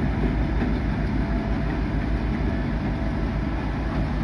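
Coal train rolling slowly past, a steady rumble of railcar wheels on the rails.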